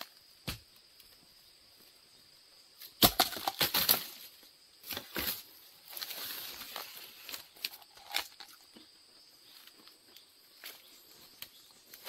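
Dry bamboo leaf litter and twigs crackling and snapping as someone pushes through a bamboo thicket, in scattered bursts, the loudest a run of cracks about three to four seconds in. A faint steady high insect buzz sits underneath.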